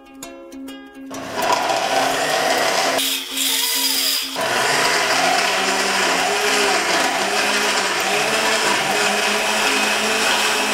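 Yimaler countertop blender with a glass jug running, blending fruit chunks into juice. The motor starts about a second in, over ukulele background music.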